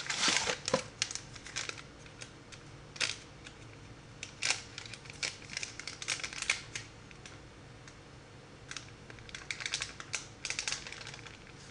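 Crinkling and crackling of food packaging, a small paper box and then a foil seasoning sachet, handled and shaken as powder is poured out into a bowl. It comes in bursts of quick crackles, with a quieter lull about two-thirds of the way through.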